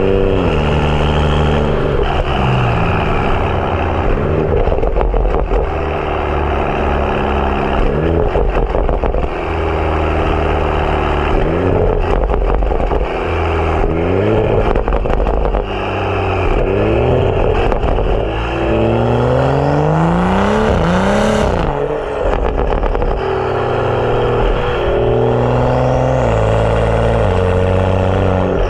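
BMW 335i's turbocharged N55 inline-six, breathing through a catless downpipe and M Performance exhaust, pulling through the gears under acceleration. The engine note rises and drops again and again with each shift, with a longer, higher rev climb about two-thirds of the way in that falls away sharply.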